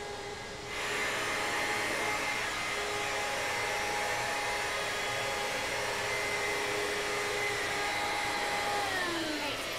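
Upright vacuum cleaner running on office carpet, a steady motor whine over a rush of air. Near the end the motor winds down, its pitch falling.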